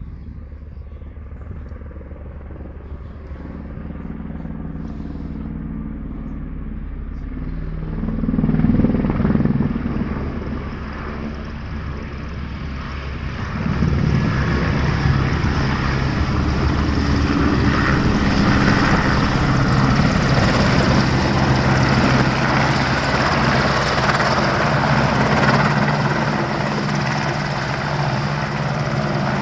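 AgustaWestland AW101 helicopter flying in and passing close. Its rotor and engine noise grows steadily louder, swells briefly about a third of the way in, then stays loud and full from about halfway as the machine comes near.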